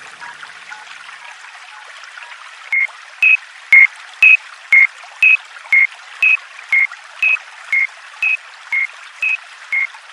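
Japanese level-crossing warning bell starting about three seconds in: short 'kan-kan' dings alternating between two close pitches, about two a second, over a steady hiss.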